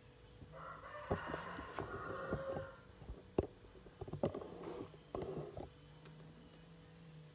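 A rooster crows once, a single call of about two and a half seconds starting about half a second in. Several shorter calls and a few sharp knocks follow over the next few seconds.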